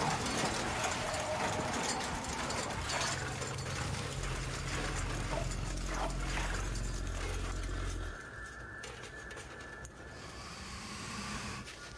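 Horror-film sound design: a dense rushing noise over a low rumble. About eight seconds in it drops to a quieter hum with steady high tones, under distorted video footage.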